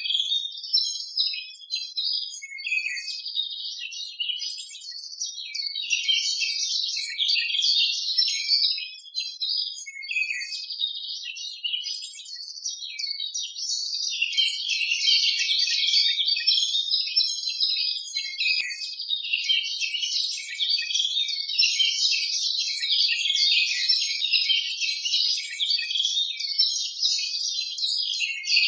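Many small birds chirping and twittering without pause, all high-pitched, with no lower sounds underneath.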